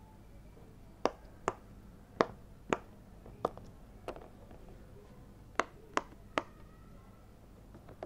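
Bubbles of a large silicone pop-it fidget board being pressed one at a time, giving about nine sharp pops in loose groups, with a longer gap in the middle.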